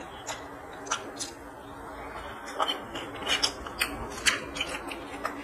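Eating sounds: a scattered string of short, sharp clicks and smacks, thickest from about two and a half to four and a half seconds in, as rice is mixed by hand on a steel plate and chewed.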